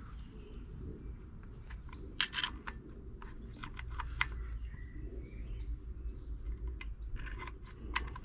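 Irregular small metallic clicks and taps of a 3/16 Whitworth spanner working the nuts on a motorcycle brake plate, with a denser run of clicks about two seconds in and more near the end, over a steady low hum.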